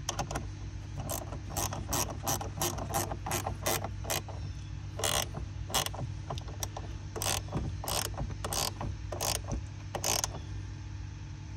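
Ratcheting wrench clicking in short irregular runs while tightening a car battery terminal clamp.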